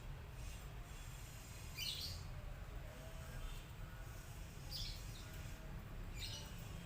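Small bird chirping: three short high chirps, about two seconds, five seconds and six seconds in, over a steady low rumble.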